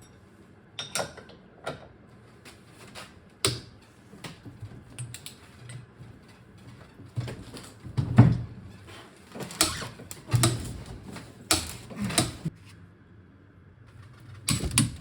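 Wrench work on the differential mounting bolt of a BMW E46 rear subframe: irregular metallic clicks and knocks from hand tools, the loudest about 8 seconds in.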